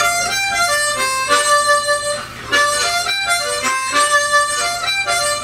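Blues harmonica playing single-note lines with tongue blocking, which gives the notes a little chunky sound. It plays two quick phrases of separate notes with a brief break a little past two seconds in.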